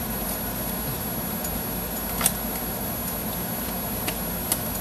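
Steady fan-like hum in a kitchen, with a few light clicks from a plastic spice-jar cap being twisted and handled.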